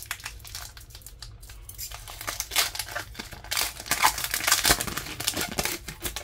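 Foil wrapper of a Pokémon Scarlet & Violet booster pack crinkling in the hands and being torn open, with irregular crackles and rips that are busiest and loudest from about two to five and a half seconds in.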